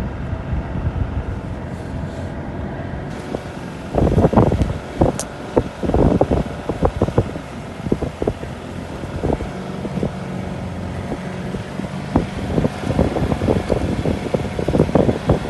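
Mitsubishi Pajero 2.8 TDI's four-cylinder turbodiesel running while the vehicle drives off-road through snow. Clusters of knocks and thumps come about 4 and 6 seconds in and again near the end.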